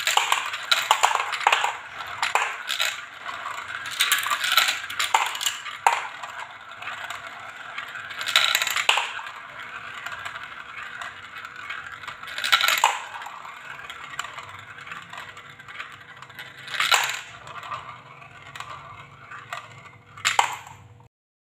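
Small balls rattling and rolling around plastic marble-run spiral funnels and clattering into a toy dump truck's plastic bed. It is a busy rattle at first, thinning to a soft roll with single sharp clacks every few seconds as the last balls drop, then it cuts off suddenly.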